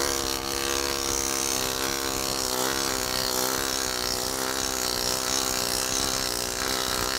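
A pneumatic planishing hammer runs steadily. Its air-driven hammer strikes sheet metal against the anvil so fast that the blows blend into one continuous buzz, working a dimple into the sheet.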